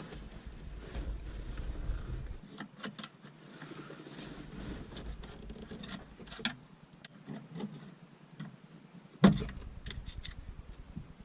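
Flathead screwdriver working at the metal clips in the centre of a car's rear seat backrest: scattered metal clicks and scrapes over low rumbling handling noise, with one sharp knock about nine seconds in.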